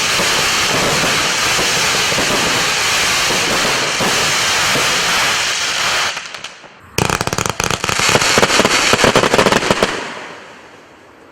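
30 mm compound fireworks battery (Wolff Jackhammer, 105 shots) firing its finale. A dense, continuous rush of noise fades out about six seconds in. Then a sudden rapid volley of sharp bangs runs for about three seconds and dies away as the battery burns out.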